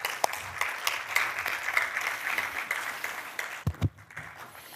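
Audience applauding, dying away after about three and a half seconds, with two short low thumps near the end.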